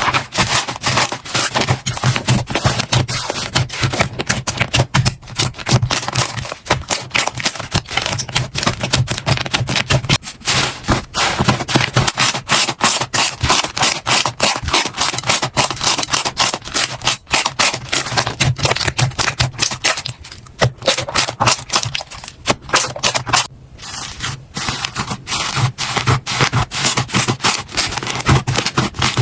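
Slime being squished and worked by hand, making a dense, continuous stream of sticky clicks and pops.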